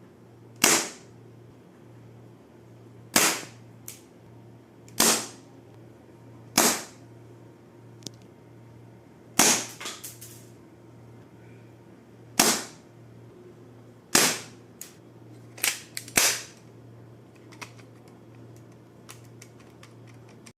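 Toy Glock-style Q1-18 BB pistol firing plastic pellets: about nine sharp cracks, one every one to three seconds, with fainter clicks between some of them.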